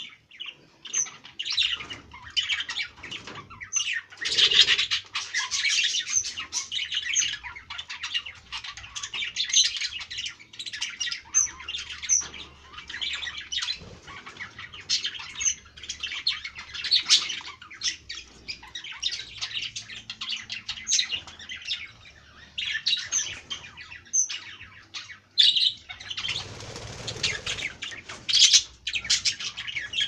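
A flock of budgerigars chattering, many short high chirps and squawks overlapping without a break. A brief rustling noise comes near the end.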